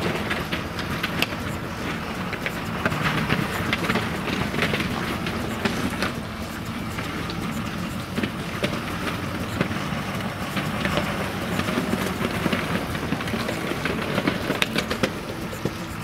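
Ford 6.7L Power Stroke V8 diesel truck running: a steady mechanical noise with scattered sharp clicks and rattles.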